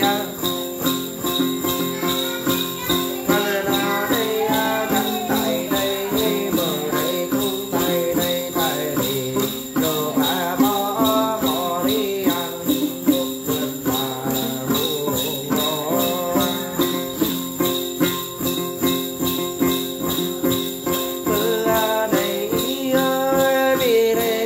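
Tày Then ritual singing: a man chants a melodic line over the steady rhythmic shaking of a bunch of small jingle bells (the Then bell cluster, chùm xóc nhạc).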